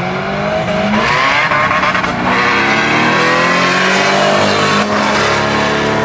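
Two drag cars, a Chevrolet Corvette and a red hatchback, accelerating hard side by side. Their engine notes climb, drop at a gear change about two seconds in, climb again and drop once more near five seconds.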